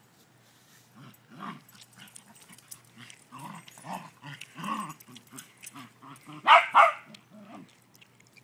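Beagle and West Highland white terriers play-fighting: a string of short yips and barks about every half second, with two loud barks in quick succession about six and a half seconds in.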